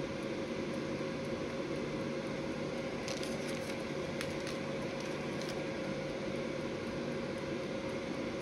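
Steady hum of a running kitchen appliance fan with one fixed mid-pitched tone. A few light crackling ticks come about three to five seconds in.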